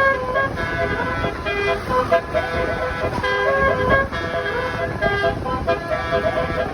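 A tour bus's basuri horn, a multi-trumpet air horn, playing a tune of short and held notes that step up and down in pitch.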